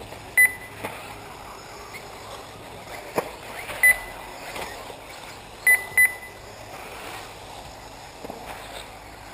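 Short, loud electronic beeps from the race's lap-counting system as buggies cross the line: one about half a second in, one about four seconds in, and two in quick succession near six seconds. A sharp knock sounds about three seconds in.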